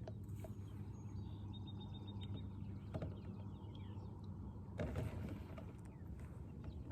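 Faint lakeside ambience: a steady low rumble, with a bird calling a quick run of short high notes about a second and a half in, then a few chirps.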